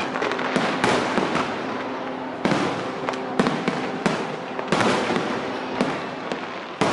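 Aerial fireworks display: about ten sharp bangs of bursting shells at uneven intervals, over continuous crackling.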